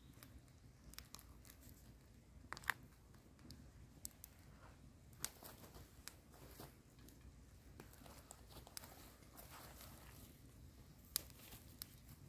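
Near silence with faint, scattered clicks and crackles of knife work on a raw trout fillet and a small wood fire burning beside it; a few sharper clicks stand out, the clearest near the end.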